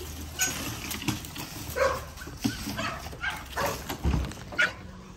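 Dogs barking, a string of short barks roughly one or two a second.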